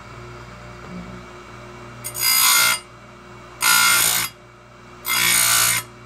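Oregon 410-120 bench chain grinder running with a steady hum, its grinding wheel brought down onto a chainsaw chain's cutter tooth three times, each a harsh grind of under a second, sharpening the tooth.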